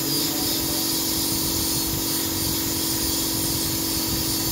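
Dental drill running steadily against the upper front teeth with its water spray, a continuous high hiss over a steady low hum, as teeth are ground down for porcelain crowns.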